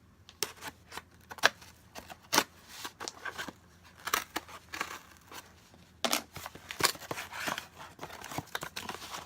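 A small package being opened by hand: a quick run of sharp snips and clicks, with rustling and tearing of packaging between them.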